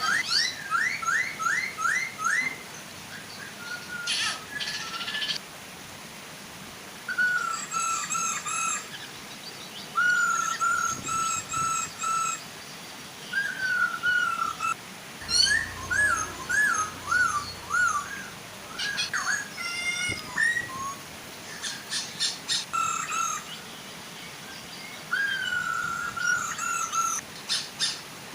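Poksay hongkong laughingthrushes calling in bouts of repeated whistled notes, some falling or wavering, mixed with higher chirps, with short pauses between bouts. A soft, steady waterfall hiss lies underneath.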